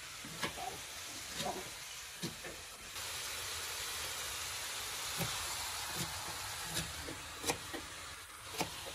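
A steady hiss that grows louder about three seconds in and then holds even, with a few light clicks scattered through it.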